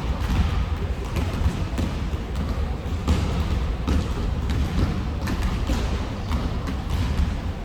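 Basketballs bouncing on a hard court floor, with many short thuds over a steady low rumble.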